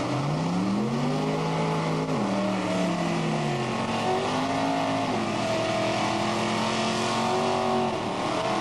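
Drag race car's engine revved hard and held during a burnout, over the hiss of spinning tyres. The pitch climbs in the first second, holds, drops about two seconds in, then rises again and holds before falling near the end.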